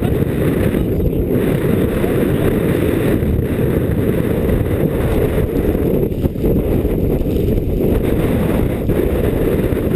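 Strong wind buffeting the microphone of a helmet-mounted GoPro HD camera: a loud, steady low rumble.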